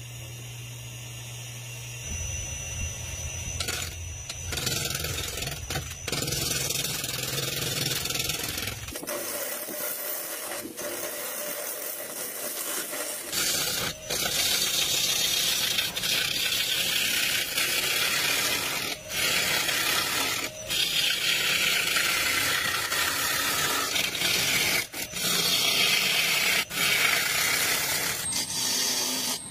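Rikon wood lathe spinning a rough wooden log blank while a turning gouge cuts into it: a hissing, scraping cut over the motor's low hum. The hum is plain at first, the cutting noise grows loud from about five seconds in, and it breaks off and resumes abruptly several times.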